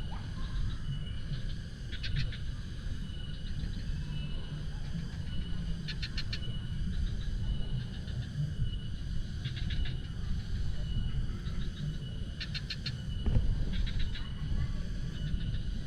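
Outdoor nature ambience: short trains of rapid chirping calls from wild animals every two to four seconds, over a faint steady high thin tone and a constant low rumble, with a single thump about 13 seconds in.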